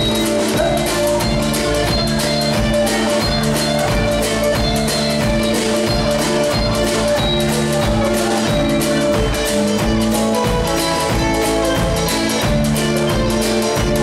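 A live country band playing a steady-tempo number: acoustic guitar, pedal steel guitar and electric bass over a regular beat from drums and a washboard.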